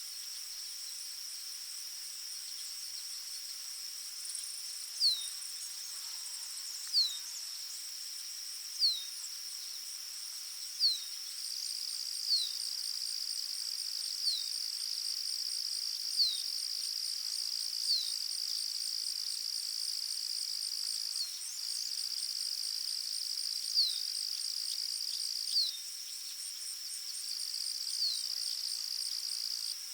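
Forest ambience: a steady, high insect trill with a faster pulsing chirp above it. From about five seconds in, a bird repeats a short, downward-sliding whistle about every two seconds, louder than the insects.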